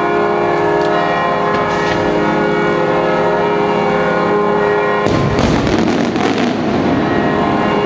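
Aerial firework shells bursting: a dense run of bangs and crackle from about five seconds in, lasting about a second and a half, over a steady sustained chord of many held tones.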